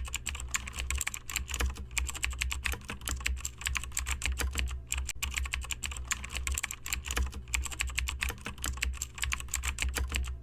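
Fast typing on a computer keyboard: a dense, uneven run of key clicks over a steady low hum, with a brief pause about five seconds in.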